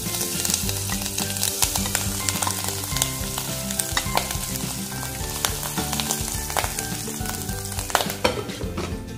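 Spice-coated boiled clam meat frying in hot oil in a pan: a steady hard sizzle with frequent sharp pops as the meat spatters, while a metal spoon scrapes it off a plate and stirs it in.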